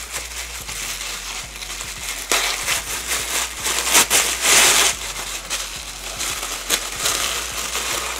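Paper wrapping crinkling and rustling as a gift-wrapped perfume is unwrapped by hand, with louder bursts of crinkling about two and a half seconds in and again around four to five seconds in.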